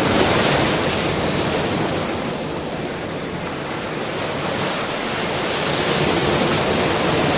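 Ocean surf: waves breaking and washing in as a steady rush of water. It swells at the start, eases off a little, then builds again toward the end as another wave comes in.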